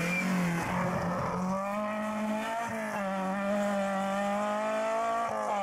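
Peugeot 106 rally car's engine taking a corner and then accelerating away, its note climbing steadily through one gear before a quick upshift about five seconds in.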